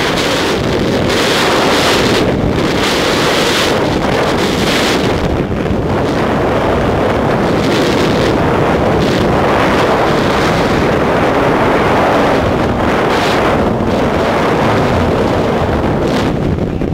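Loud, steady rush of freefall wind blasting the camera's microphone during a tandem skydive, swelling and easing slightly as the pair shifts in the airflow.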